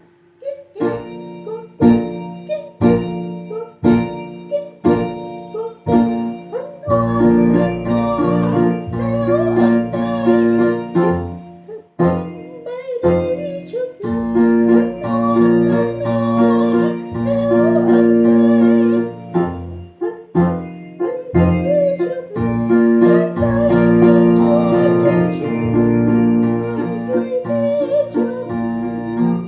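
Piano music. Chords are struck about once a second at first, then from about seven seconds in the playing becomes fuller and held, with a melody over sustained chords.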